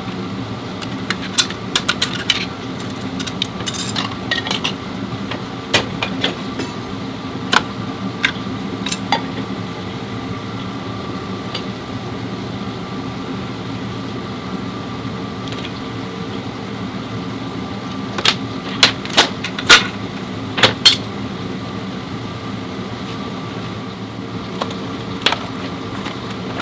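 A steady machine hum, with light metallic clinks and taps scattered through it and a quick run of sharper knocks a little past the two-thirds mark, as of tools and metal parts being handled.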